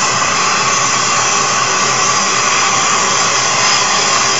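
Oxygen-propane torch flame burning with a steady, loud rushing hiss as it heats a crucible to melt non-precious dental casting alloy.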